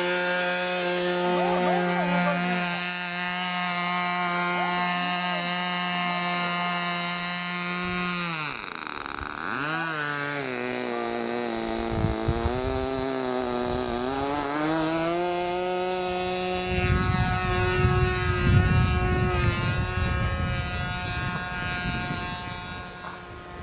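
Radio-controlled model airplane's engine and propeller running steadily, its pitch dropping and rising again twice as the throttle or the plane's passing changes it. Over the last few seconds, gusts of strong wind buffet the microphone.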